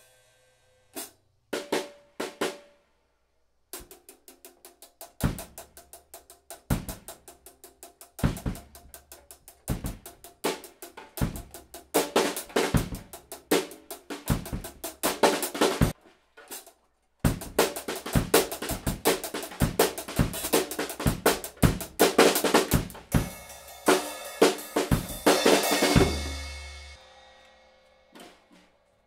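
Acoustic drum kit being played: a few scattered hits, then a steady beat with bass drum and snare that grows busier, breaks off briefly about midway, and resumes. It ends on a cymbal left ringing out.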